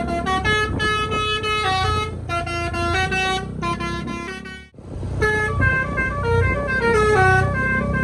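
Bus telolet horn (a Basuri multi-tone air horn) playing a quick melody of short stepped notes over a low engine rumble, cutting out briefly about halfway through before the tune carries on.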